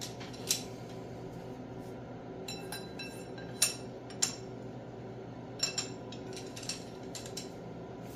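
Steel pushrods clinking against the cylinder head and valve springs of a Farmall 450 engine as they are dropped one by one into the lifters: scattered sharp metal clinks, the loudest about three and a half and four seconds in, over a steady low hum.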